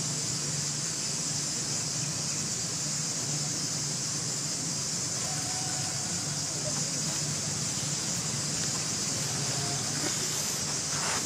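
Steady high-pitched drone of insects, with a low steady hum underneath.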